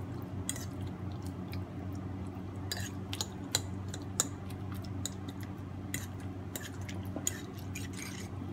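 Metal fork mixing minced pork with egg and soy sauce in a ceramic bowl: wet squelching with irregular clinks of the fork against the bowl, about a dozen in all.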